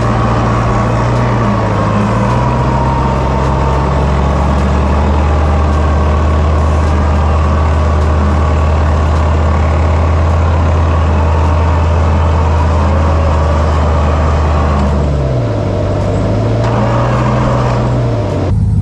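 Truck engine running steadily under light load. Its pitch dips briefly and comes back up twice, once about a second and a half in and once near the end.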